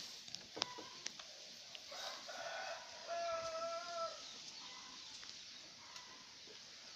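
A rooster crowing once, faintly: a long pitched call that starts about two seconds in and holds steady for about two seconds before dropping away. A few light clicks come before it.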